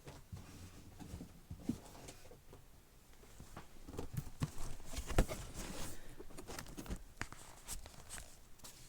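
Handling noise of books being moved and stacked: irregular taps, knocks and rustles, busier in the second half, with one sharper knock about five seconds in.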